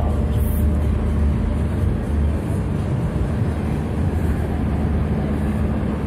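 Fairground din: the steady low rumble of running rides and their machinery.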